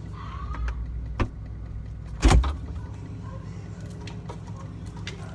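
Items being handled at a fridge: a sharp click about a second in, then a heavy thud a second later, over a steady low hum.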